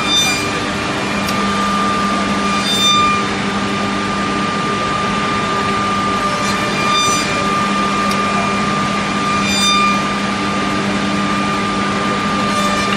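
Woodmaster four-cutter CNC tenoning machine running with a steady motor hum, broken every two to four seconds by a brief, louder high-pitched whine.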